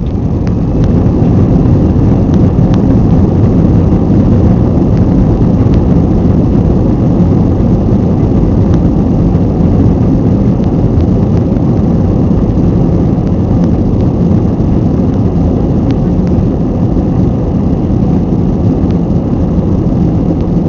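Airbus A320-200 jet engines and airflow heard from inside the cabin during the takeoff roll: the noise builds over the first second or two as thrust comes up, then holds a loud, steady rumble as the airliner accelerates down the runway, with a few faint clicks here and there.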